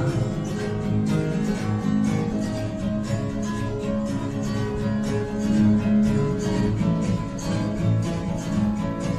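Instrumental break in a song: acoustic guitar strummed in a steady rhythm, with no singing.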